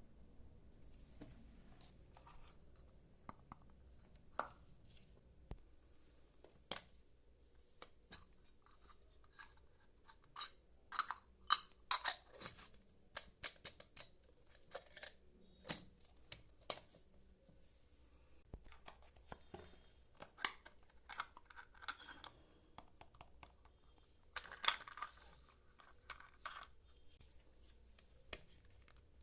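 Unboxing and handling of miniature plastic toy kitchen pieces and their packaging: irregular light clicks, taps and brief scrapes, with a quick run of sharper clicks about eleven seconds in and a short rustle near the end.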